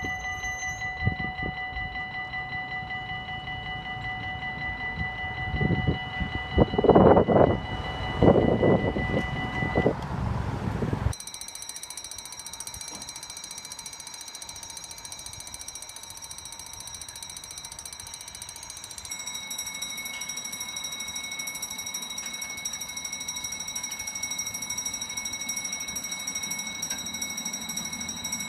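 Level-crossing warning bells. First an electronic bell (a Dutch-type e-bell) sounds steadily as the barriers rise, with loud low noise coming and going a few times before the bell stops. About a third of the way in, another crossing's electronic bell takes over with a higher, steady tone that changes its pattern partway through.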